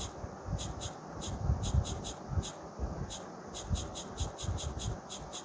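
Stylus scraping and tapping on a tablet's glass screen in quick short strokes, several a second, while erasing a drawing, with dull low knocks underneath.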